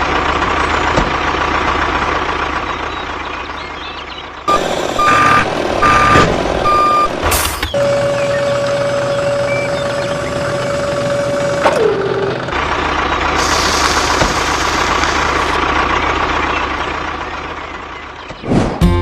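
Vehicle engine running steadily, broken by a few short beeps of the kind a reversing alarm makes about five seconds in, then a long steady tone lasting about four seconds, before the engine sound returns.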